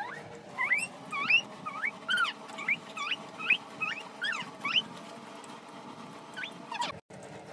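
A domestic animal crying: about a dozen short high-pitched cries, each sliding up in pitch, in quick succession over four seconds, then a single cry near the end.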